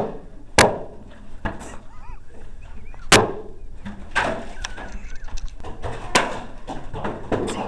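Homemade swords whacking homemade shields and body armor in a mock sword fight: about six sharp, irregular blows, the loudest around three seconds in, with faint shouts between them.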